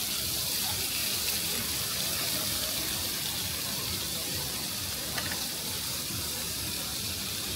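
Steady rushing hiss, even throughout, with a low rumble beneath it.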